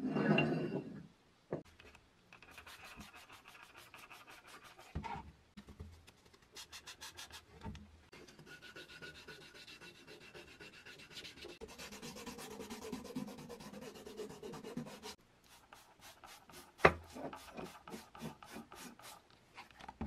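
Gloved hands rubbing wet, grey-coated coffee-grinder parts in quick repeated strokes, like fine wet sanding, with a sharper knock of a part on the wooden bench near the end.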